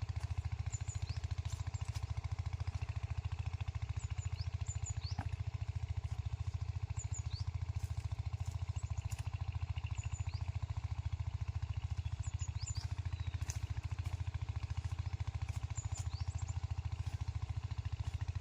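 A steady low engine hum runs throughout, with short high bird chirps scattered over it.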